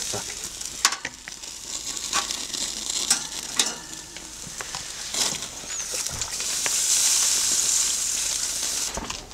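Beef liver and sheep's tail-fat skewers sizzling over hot coals, with sharp crackles throughout. From about five seconds in, a louder hiss swells as water is poured from a bottle onto the grill, then drops away near the end.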